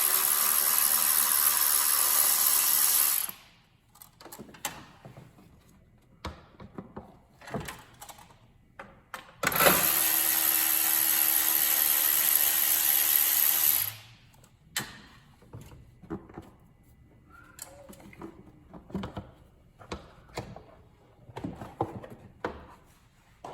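A compressed-air tool run in two long bursts, a loud steady hiss with a hum under it, the first at the start and the second about ten seconds in. Light clicks and clatter of tools and parts are handled in between and afterwards.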